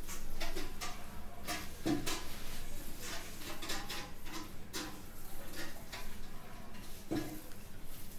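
A man's voice coming through a poor video-call connection, broken up into choppy, clicking fragments with no clear words.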